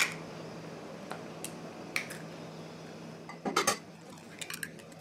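Eggshells clicking as an egg is separated by hand, then a quick cluster of knocks about three and a half seconds in as a whole egg is tapped against the rim of a small cup to crack it, followed by a few light shell clicks.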